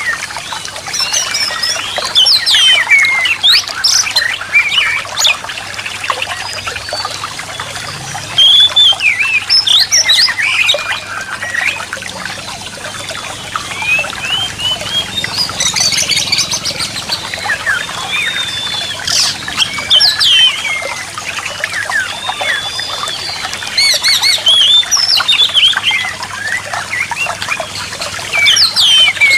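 Oriental magpie-robin (kacer) singing continuously: a varied stream of short gliding whistles, chirps and harsh scratchy notes, over a steady hiss.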